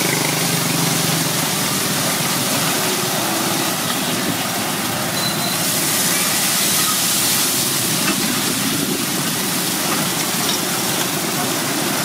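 Battered banana fritters deep-frying in a wide pan of hot oil, sizzling steadily, with a low steady hum behind.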